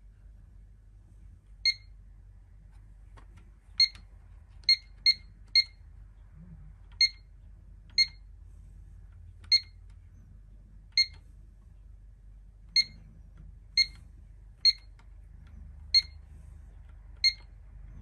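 Pyronix alarm keypad beeping at each key press as zone settings are keyed in: fourteen short, high beeps at uneven intervals, several in quick succession about four to six seconds in.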